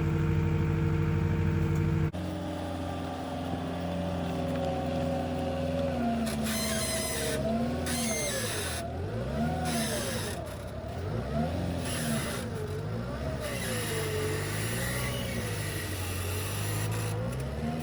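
Skid steer engine running. About two seconds in it drops abruptly to a quieter steady run, and from about six seconds in its pitch rises and falls again and again, every second or two.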